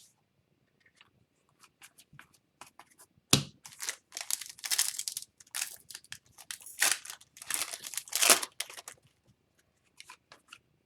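Wrapper of a hockey card pack being torn open and crinkled in a run of short rasping rips, after a single sharp knock a little over three seconds in. Faint light clicks come before and after.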